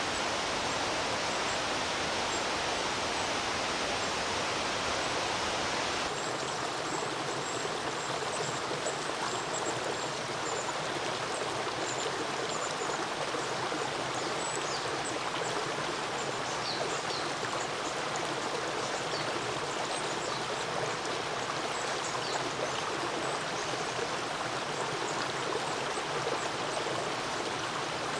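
Steady rush of flowing river water. From about six seconds in, thin high calls of small birds come in over it.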